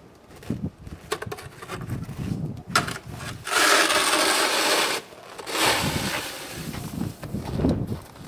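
Snow shovel scraping and pushing snow on a driveway. There is one long, loud scrape about three and a half seconds in and a weaker one just after, with short knocks and scrapes around them.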